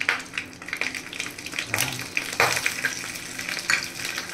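Mustard seeds popping and crackling in hot oil in a kadhai, many irregular sharp pops with a few louder ones over a steady sizzle: the oil is hot enough for the seeds to splutter, as in a tempering.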